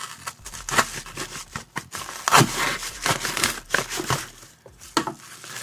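A paper padded mailer with a bubble-wrap lining being cut open with a small blade and handled, crinkling and rustling in irregular bursts.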